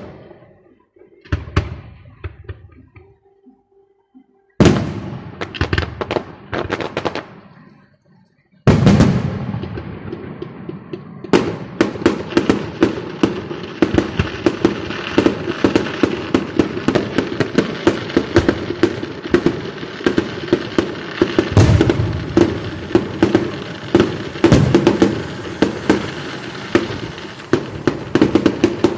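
Aerial fireworks going off: a few separate bangs with crackling tails over the first several seconds, then, from about a third of the way in, a long unbroken run of rapid sharp pops and crackles with heavier bangs among them. The bursts are white crackling shells.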